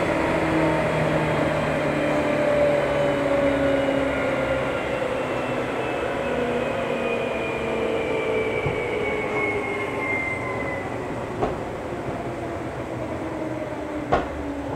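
Seibu 2000 series field-chopper electric train heard from inside motor car KuMoHa 2465: the traction motor and gear whine falls steadily in pitch as the train slows. Two sharp clicks come near the end.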